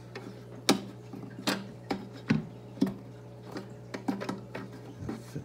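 Scattered sharp clicks and light knocks, the loudest about a second in, from hands and a phone handling an empty glass aquarium and its plastic hood, over a steady low hum.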